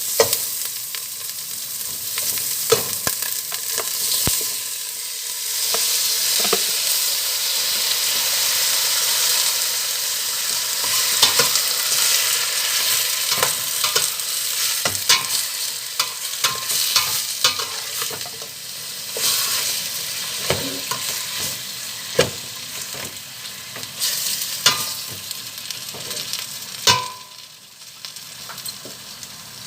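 Food sizzling in a hot frying pan while it is stirred, with a utensil clicking and knocking against the pan. Near the end, after a knock, the sizzling drops off sharply to a quieter hiss.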